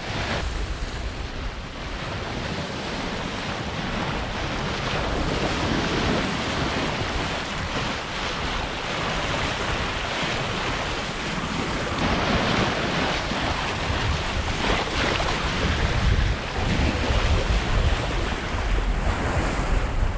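Sea rushing and breaking around a sailing yacht under way in a fresh 18–20 knot breeze, with wind gusting over the microphone. The rush swells and eases, with heavier low gusts of wind buffeting near the end.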